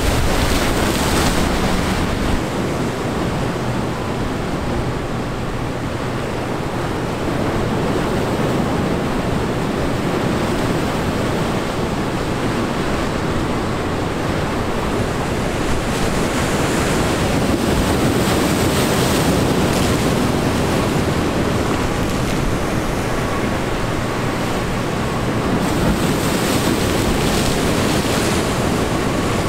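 Rough surf breaking and splashing against the inlet's rock and concrete jetty, with wind buffeting the microphone.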